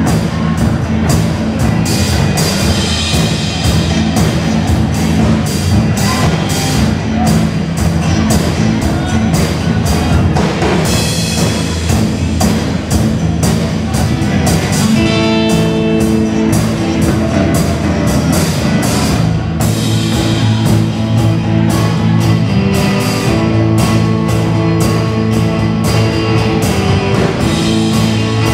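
Rock band playing an instrumental passage with a steady beat on drum kit, over electric bass and guitars.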